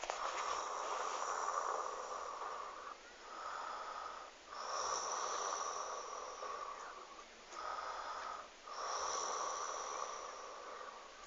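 A person snoring: long snores of about three seconds alternating with short ones of about a second, with a thin high whistle over the long ones.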